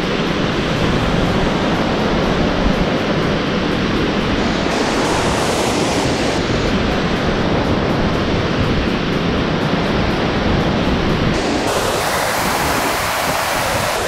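Loud, steady rushing of a fast mountain river tumbling over boulders, a continuous roar of white water with no let-up.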